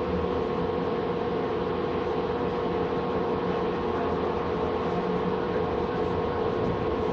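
Steady rumble of a light-rail car heard from inside the passenger cabin, with a constant hum running through it.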